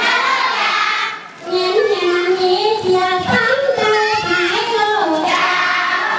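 A group singing a melody together, with children's voices among them, in long held notes that glide between pitches; the singing breaks off briefly about a second in.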